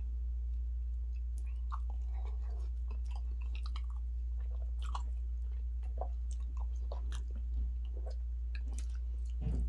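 Close-miked chewing and mouth sounds of someone eating fufu with turkey stew: many short irregular smacks and clicks, and a low knock near the end. A steady low hum runs underneath.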